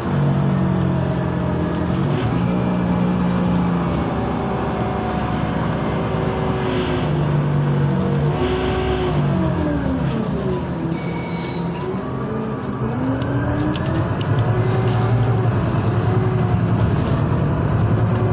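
Scania CityWide LF 18 articulated natural-gas bus heard from inside the cabin while driving: the engine hum steps and glides in pitch with the gear changes, drops low a little past halfway, then climbs again as the bus picks up speed. A short high beep sounds about two-thirds of the way through, over steady road noise.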